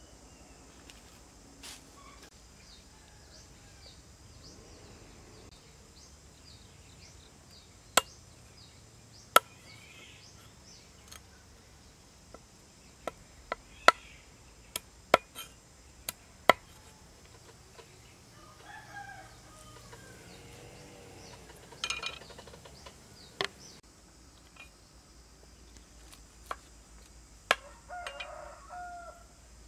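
Knife chopping through raw frogs on a wooden chopping board: sharp single strikes, with a quick run of them in the middle. Chickens clucking and a rooster crowing a few times in the background, over a steady high drone of insects.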